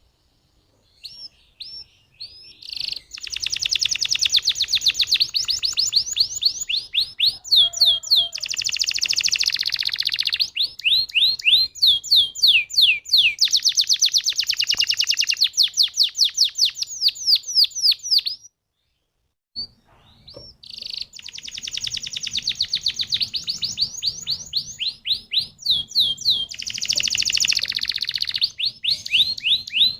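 Domestic canary singing a long rolling song of fast trills and rapidly repeated downward-sweeping notes. The song stops completely for about a second just past the middle, then resumes.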